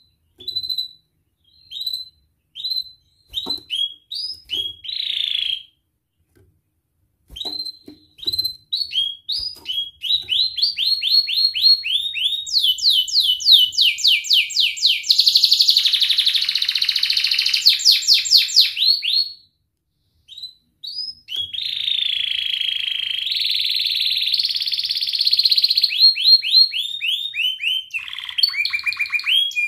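Domestic canary singing. It opens with single upturned chirps spaced apart, then builds into fast repeated trills and a rolling, buzzy stretch. After a brief pause about two-thirds through, more long rolling trills follow, ending in a run of quicker, lower notes.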